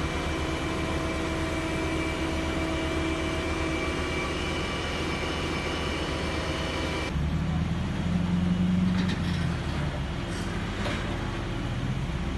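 A crane's engine runs steadily with a thin, high whine over it. About seven seconds in, the sound cuts abruptly to a deeper engine hum from the heavy truck hauling the bunker on its oversize-load trailer.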